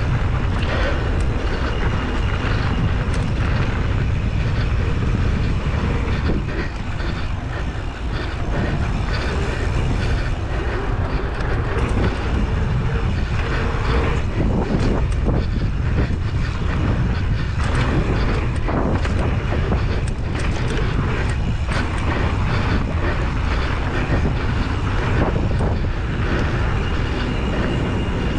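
Mountain bike rolling fast down a dirt downhill trail: a steady rumble of wind buffeting the microphone over tyre noise on loose dirt, with scattered clicks and knocks from the bike over bumps.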